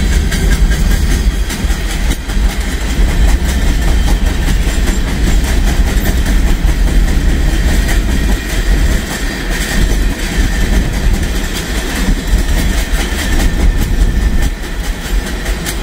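Empty grain train rolling past: a loud, steady rumble of freight-car wheels on the rails, with a fast run of clicks from wheels crossing rail joints.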